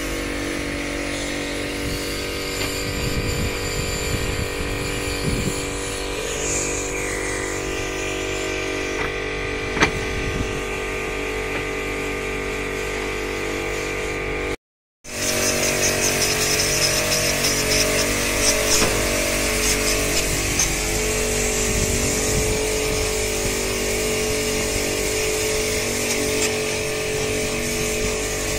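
A small engine running steadily at a constant speed. It cuts out for a moment about halfway through, then carries on with a slightly changed tone.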